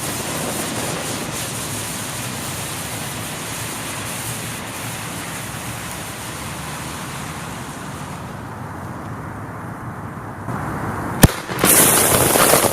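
Extra-large firecracker going off: a long steady hiss, then one sharp bang about eleven seconds in, followed by a loud rush of noise.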